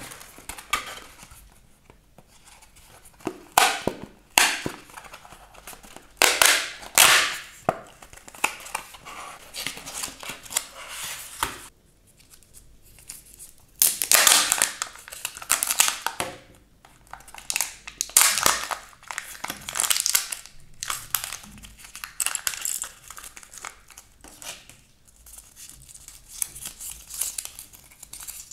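Kinder Joy egg wrappers of thin foil and plastic film crinkling and tearing as they are peeled open by hand. The rustling comes in irregular bursts, loudest about 3 to 4, 6 to 8, 14 to 16 and 18 to 20 seconds in, and is softer near the end.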